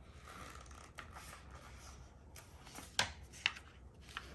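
Paper rustling with a few light knocks about three seconds in, as a book is handled and a page turned.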